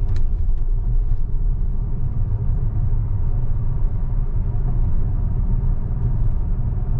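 Steady low road and tyre rumble inside the cabin of a Tesla electric car driving along, with no engine note.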